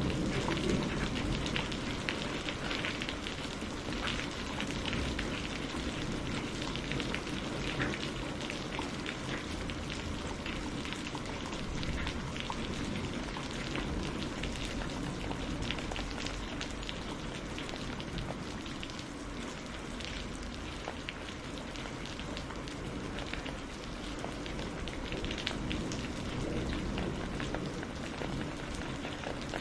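Steady rain with a dense patter of small sharp crackles and ticks over a low, even rumble.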